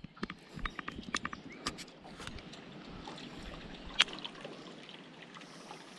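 Gentle lapping and trickling of river water at the shoreline, with scattered small clicks and knocks in the first couple of seconds and one sharp click about four seconds in.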